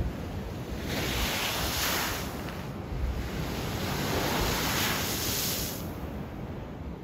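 Sea surging through a coastal blowhole in the rocks: two rushes of spraying and splashing water, the second longer, as the spout bursts and the water pours back over the rock. Wind buffets the microphone throughout.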